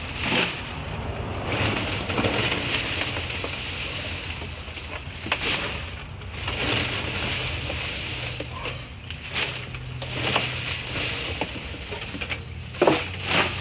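Dry cut grain stalks and heads rustling and crackling as they are handled by the armful and dropped into a wooden thresher box, in uneven bursts.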